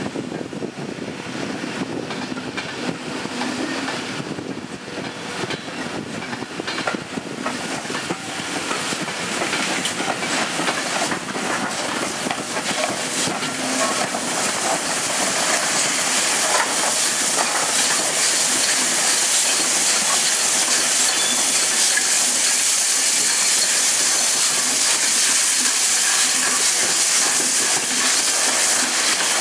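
Steam locomotive 46233 'Duchess of Sutherland', an LMS Princess Coronation class Pacific, rolling slowly past with wheels clicking over the rail joints and pointwork. From about halfway a loud, steady steam hiss builds up and holds.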